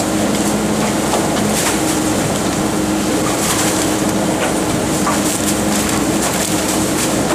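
Rotary-type garbage truck's packer turning in the rear hopper, drawing in and crushing plastic bags of rubbish, over a steady hum from the truck's engine and hydraulics. Scattered crackles of the bags being crushed run through it.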